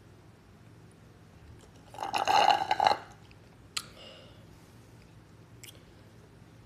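A drink slurped through a straw from an iced glass mug: a loud, noisy gurgle lasting about a second, starting about two seconds in, followed by a single sharp click.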